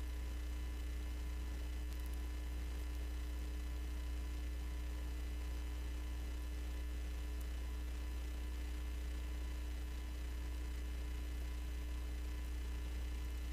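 Steady low electrical hum with a few faint constant higher tones above it, typical of mains hum in a live broadcast's audio line.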